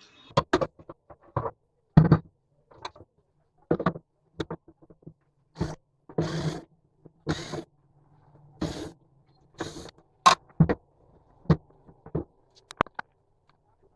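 Irregular clicks, knocks and short scrapes of hand tools on the metal casing of an inverter welding machine as it is opened up. There are a dozen or so separate sounds with gaps between them, a few of them longer scraping strokes in the middle.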